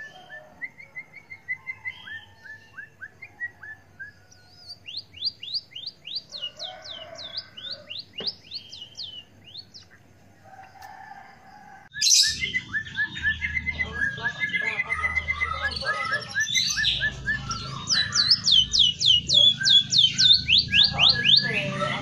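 Caged white-headed munia (emprit kaji) singing, with fast runs of sharp, downward-slurred whistled notes mixed with chirps. The song gets louder about halfway through, over a low hum.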